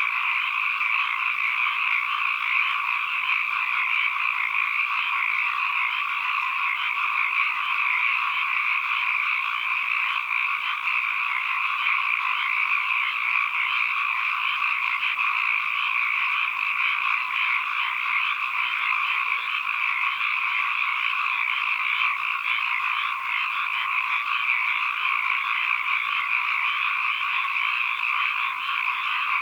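A chorus of many frogs calling at once, their calls overlapping into a steady, unbroken din with no pauses.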